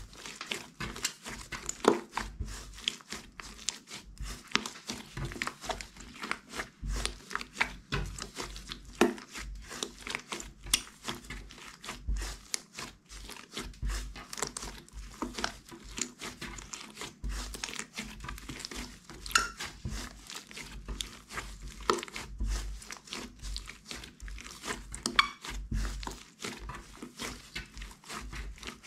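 Hands kneading, stretching and pressing glossy slime, making an irregular run of sticky clicks and small pops with soft squelching thuds.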